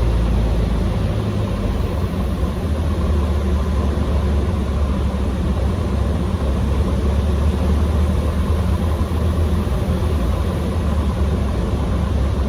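Cessna 150M's four-cylinder Continental O-200 engine and propeller droning steadily on final approach, its low tone shifting about a second in.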